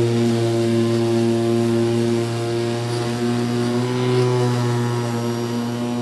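Petrol lawnmower engine running steadily, its pitch lifting slightly about four seconds in.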